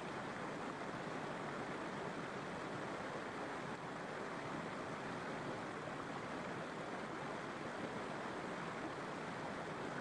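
Waterfall and stream water rushing steadily, an even hiss with no breaks.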